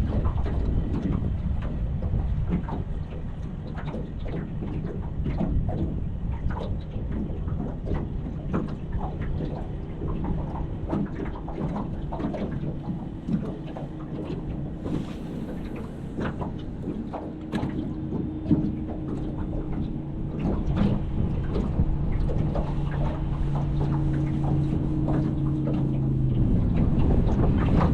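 Wind buffeting the microphone and water slapping against a boat's hull. From about halfway a steady motor hum joins in, dropping in pitch and stopping near the end.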